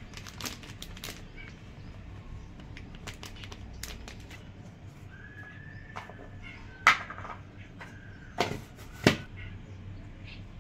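Light clicks and taps of a spice packet and hands handling a steel plate of ground masala ingredients, with three sharper knocks in the second half. A faint high-pitched call is heard twice in the middle.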